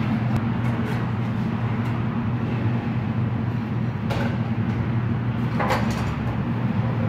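A steady low hum, with two short knocks or clatters about four and six seconds in.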